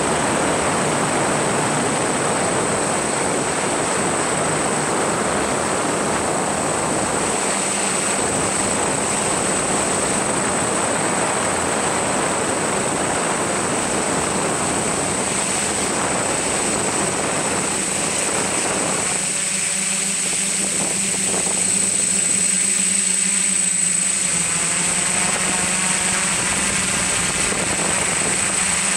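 Radio-controlled drone's motors and propellers running steadily in flight, heard from the camera it carries: a dense whirring rush with a constant high whine and a low hum. About two-thirds of the way through, the low rushing thins out and the sound changes character.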